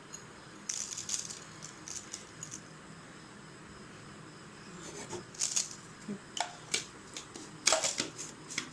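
Dried spices, black peppercorns among them, being tipped into a mixer-grinder jar: scattered clicks and rattles, in bunches about a second in, around five to seven seconds in, and louder near the end.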